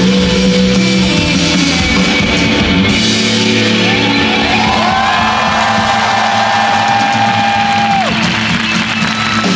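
Live band music in a hall: guitar and band chords under a held, wavering high note that slides in pitch and cuts off about eight seconds in.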